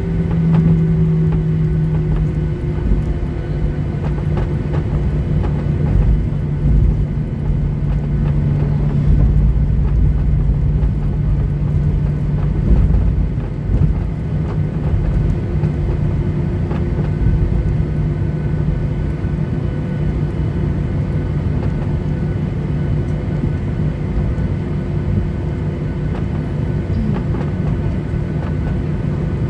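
Boeing 737-800's CFM56-7B jet engines at taxi power heard inside the passenger cabin: a steady droning hum over a low rumble from the airframe and wheels rolling along the taxiway, the rumble swelling a few times in the first half.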